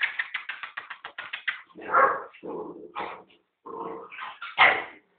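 A puppy and an adult American Staffordshire terrier playing: a quick run of claws clicking on a tiled floor, then several barks and whimpering yips, the loudest near the end.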